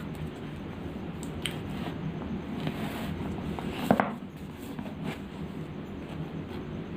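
Hands turning over a thick 960-page paperback book, with soft rustles of its paper cover and pages and a louder rub or bump against the book about four seconds in.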